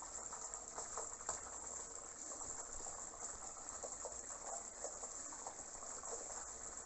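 Water running into a waterbed mattress through a fill hose: a steady rush with many small gurgles and bubbles.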